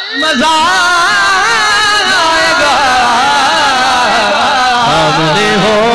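A man's voice chanting a naat, a cappella, in long wavering melismatic phrases. Steady low tones come in beneath it about five seconds in.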